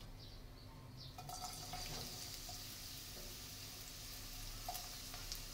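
Sliced onion dropped into hot oil in a frying pan, sizzling faintly: a steady high hiss that starts about a second in.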